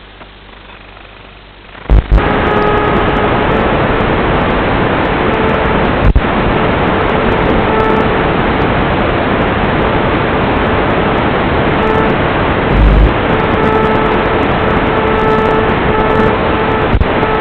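Loud, steady hiss of static from an analog 5.8 GHz FPV video link's audio, with a faint whine coming and going underneath. It drops quieter for about the first two seconds, and a few short thumps break through.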